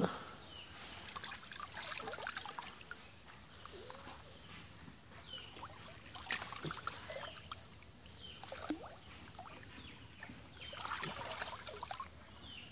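Handmade cloth hand net on a bamboo pole being swept through shallow pond water: irregular sloshing and dribbling of water, in bursts that are loudest about two, six and eleven seconds in.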